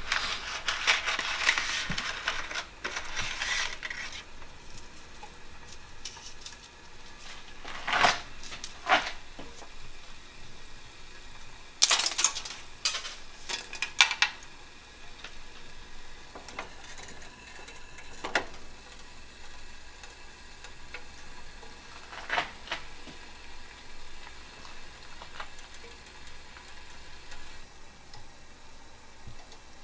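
A cardboard spaghetti box being opened, a crackling rustle over the first few seconds. Then sharp clicks and clatters, loudest about twelve seconds in, as dry spaghetti is dropped into a saucepan. A few single knocks follow.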